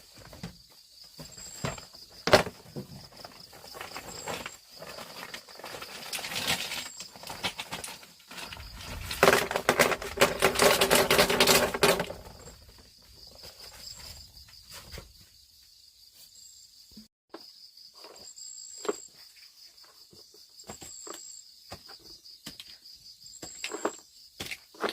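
Insects buzzing steadily at a high pitch, with scattered footsteps and small clicks and crackles in the undergrowth. A louder, rough stretch of rustling noise runs from about nine to twelve seconds in.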